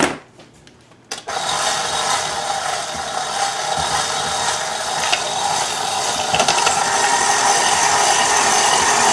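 Stand mixer's motor driving a rotary drum shredder attachment, switching on about a second in and running steadily while cheese is fed through and shredded.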